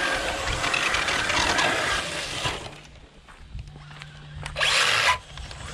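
Traxxas Slash 4x4 RC truck driving hard on loose dirt: a loud rush of tyres spraying dirt and motor noise for about two and a half seconds, then quieter with a low steady hum, and a short burst of rushing noise again about four and a half seconds in.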